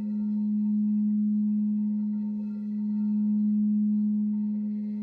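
Singing bowl sounding a steady low hum with fainter, higher overtones above it, swelling and fading slowly about every two and a half seconds.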